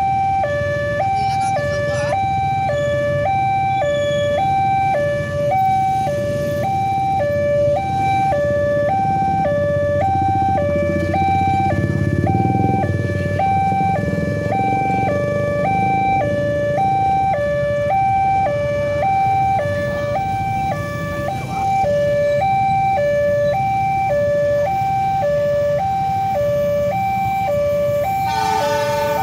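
Railway level-crossing warning alarm from the horn speaker on the crossing signal: an electronic two-tone signal switching steadily between a lower and a higher note about twice a second, warning that a train is approaching. A low rumble of waiting traffic runs beneath it.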